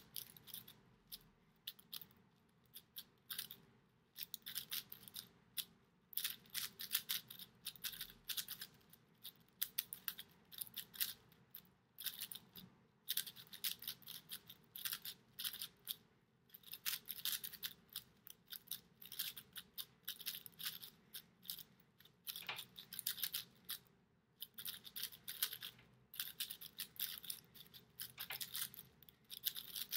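Celeritas MGC 6 plastic 6x6 speedcube being turned quickly by hand: runs of rapid clicking layer turns with short pauses between them.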